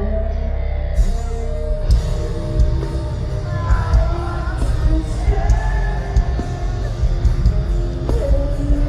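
Rock band playing live. A low held drone opens, then about a second in the drums and full band crash in, and a sung vocal line enters a few seconds later over the heavy guitars.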